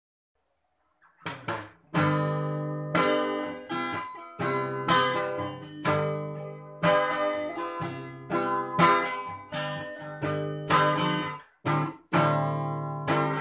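Acoustic guitar intro: chords strummed one after another, each left to ring and fade, starting about a second in.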